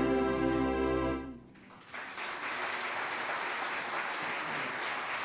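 A choir and acoustic ensemble hold the song's final chord, which dies away about a second in; after a short silence the audience breaks into steady applause.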